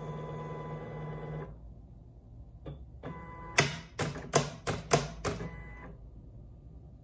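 Silhouette Portrait 4 cutting machine running: a steady motor whine that stops about a second and a half in. After a short pause there is a quick run of about seven sharp clicks with brief motor buzzes.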